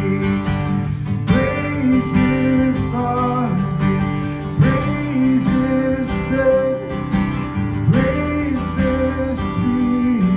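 Instrumental music led by a strummed acoustic guitar, with notes changing every half second or so.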